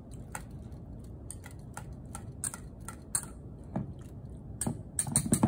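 Wire whisk stirring grated carrots into a wet mixture in a glass bowl: irregular light clicks and scrapes of the wires against the bowl, coming faster and louder near the end.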